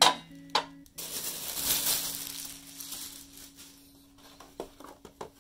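Nonstick frying pans being handled and lifted out of a molded pulp cardboard packaging tray. Two sharp knocks come in the first second, then about two seconds of scraping and rustling against the pulp, and a few light clicks near the end.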